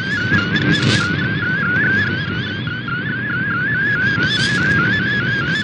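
MFSK64 digital picture transmission received over shortwave radio: a single whistling tone that wobbles up and down in a quick repeating pattern, about four or five times a second, as the image's pixel data is sent. Shortwave band hiss and low rumble lie under it.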